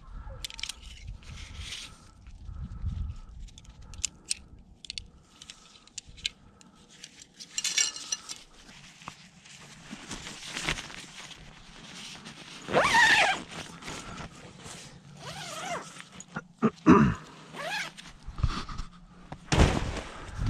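Nylon tent and gear rustling as things are handled and packed, with a zipper pulled in quick runs, the loudest and longest run about 13 seconds in, likely the tent door being unzipped.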